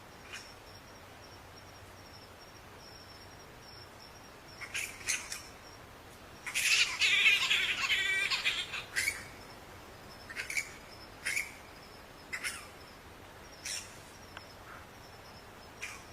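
Bats squeaking. A couple of short high squeaks come first, then a loud burst of rapid chattering lasting about two seconds, then single squeaks spaced a second or so apart.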